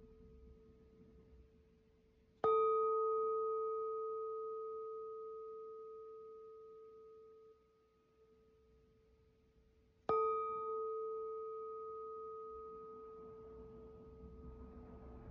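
Singing bowl struck twice, about seven and a half seconds apart, each strike a clear ringing tone that slowly fades. The first ring stops abruptly about five seconds after it is struck.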